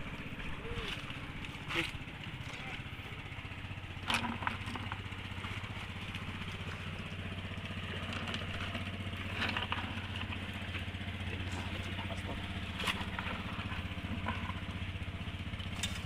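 A small engine running steadily at an even pitch, with a few short sharp knocks over it.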